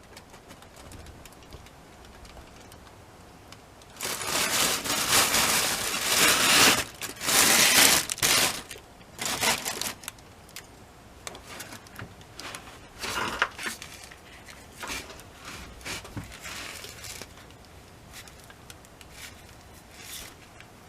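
Crinkling, rustling handling noise in loud, uneven bursts for about four seconds, then in shorter scattered bursts that die away.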